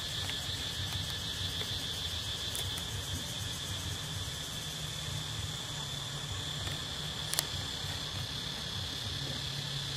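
Steady, high-pitched insect chorus of crickets or cicadas droning without a break, over a low rumble. A single sharp click stands out about seven seconds in.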